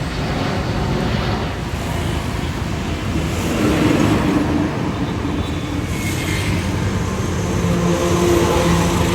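Jet airliner engines at takeoff thrust during a departure: a loud, steady rushing roar with faint whining tones in it.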